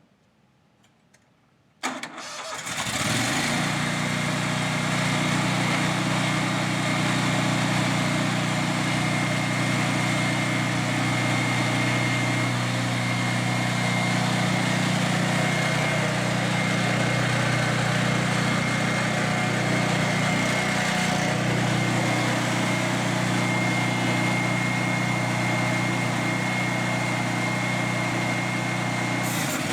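Scag Windstorm stand-on leaf blower starting up about two seconds in, then running steadily with a steady high whine over the engine.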